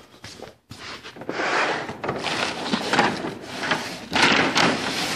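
Rustling and scraping handling noise in irregular swells, starting about a second in, as building materials are moved about and searched through.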